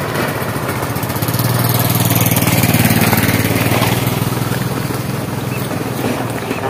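A small motor engine running steadily, growing louder to about three seconds in and then fading, as if passing by.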